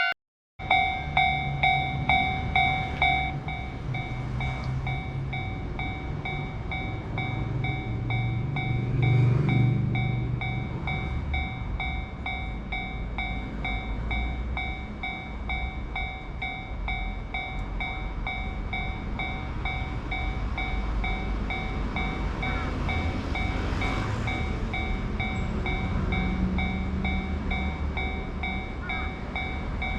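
Japanese railroad crossing's warning bell clanging steadily, about three strikes a second, loud for the first few seconds and then quieter. Under it a train passes with a low rolling rumble that swells around ten seconds in.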